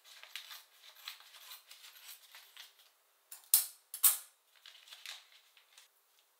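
Kitchen scissors snipping open a plastic food packet, with crinkling of the plastic. There are two loud, sharp crackles a little past halfway, then softer rustling of the opened packet.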